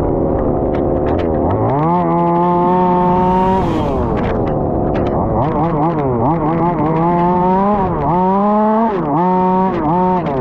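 Small two-stroke petrol engine of a 1/5-scale RC Formula 1 car revving up and down as it is driven. It drops off at the start, climbs and holds at high revs for about two seconds, falls away, then rises and dips several times in quick succession toward the end as the throttle is opened and lifted.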